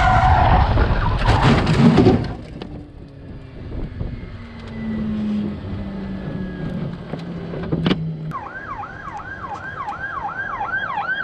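An emergency vehicle's siren starts about eight seconds in and sweeps up and down quickly, about three to four times a second. Before it, a loud engine-like noise cuts off about two seconds in, and a quieter stretch follows with a slowly falling low hum and one sharp click.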